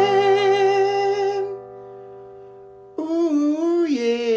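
A man singing a closing jingle: one long held note with vibrato that fades away after about a second and a half, then a new sung phrase begins about three seconds in.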